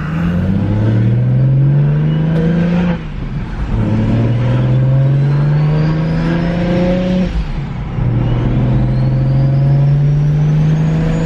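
BMW 335i's turbocharged inline-six accelerating hard through the gears: three rising runs of engine speed, cut by upshifts about three and seven and a half seconds in. A faint high whine climbs with each run.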